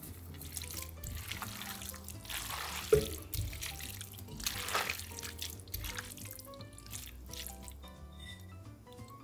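Background music over sauced mafaldine pasta being tossed with metal tongs in a skillet: wet, squishing stirring sounds, with a sharp clack about three seconds in.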